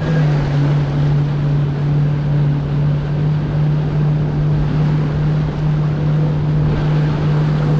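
Jet ski engine running at a steady pitch, with wind and water rushing past.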